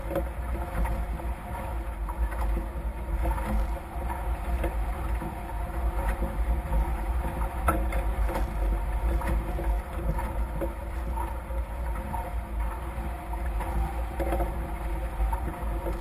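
Steady rumble of wind buffeting the microphone, with water rushing past the hulls of a Nacra F18 racing catamaran under sail.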